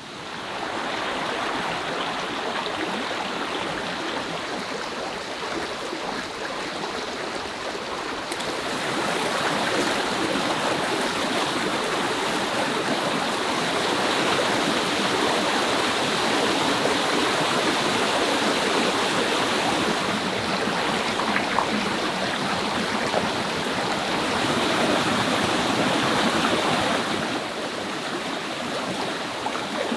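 Rocky mountain stream rushing and splashing over boulders in small cascades, a steady rush of water. It grows louder about eight seconds in and eases slightly near the end.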